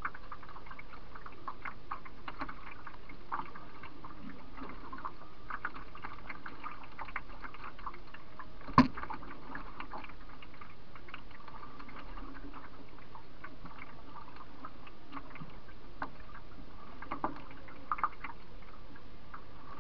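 Water lapping and trickling against a canoe's bow, with many small splashes and drips. There is one sharp knock about nine seconds in and two smaller knocks near the end.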